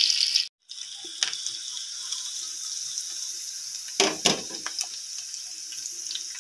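Hot oil sizzling steadily in a frying pan as sliced ginger and green and red chillies fry for a tadka. The sizzle drops quieter after a brief break about half a second in, with a few light knocks around one second and four seconds in.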